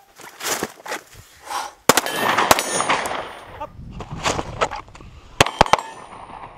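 Pistol shots with steel targets ringing as they are hit: one strike about two seconds in, another half a second later, then a quick string of three near the end, each followed by a thin metallic ring.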